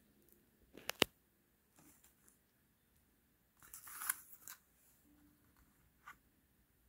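Handling of a cardboard-and-plastic pellet blister card: two sharp clicks about a second in, then a crackly rustle of the card as it is turned over around the four-second mark, and a light click near the end.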